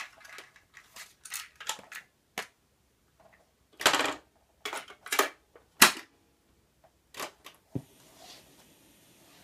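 A cassette is handled in its plastic case and loaded into a Sharp GF-8484 boombox's tape deck: a string of plastic clicks and clatters, the loudest in the middle. A low clunk near the end as a deck key goes down, then a faint steady tape hiss as playback starts.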